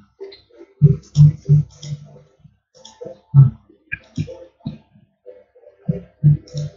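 Computer mouse clicking, about ten sharp clicks at irregular intervals, some coming close together in twos and threes.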